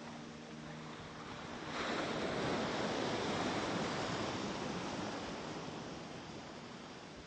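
Ocean waves: a wave breaks and washes in about two seconds in, then slowly recedes.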